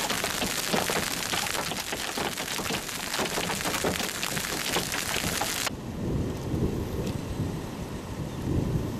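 Rain and hail pelting pavement and grass: a dense patter of sharp ticks over a steady hiss. About six seconds in it cuts off abruptly, leaving a low rumble of thunder.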